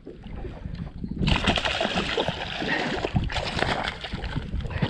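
Hooked bass thrashing at the water's surface beside the kayak: irregular splashing and sloshing that starts suddenly about a second in.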